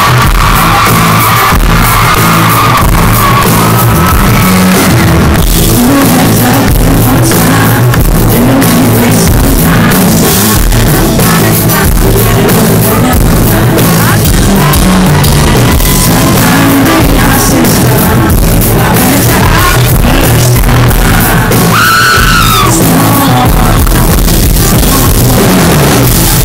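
Loud live band music: a male singer with acoustic guitar, backed by the band and heard from within the crowd. Fans scream over it, most clearly near the end.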